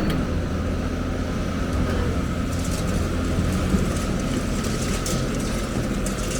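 Heavy diesel engine of construction machinery running steadily with a low rumble, and a few faint clicks.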